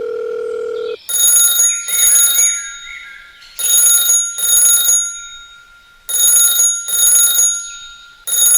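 A steady hum-like tone stops about a second in, then an electronic telephone-style ringing sounds in double rings: three pairs about two and a half seconds apart, with a fourth starting at the very end.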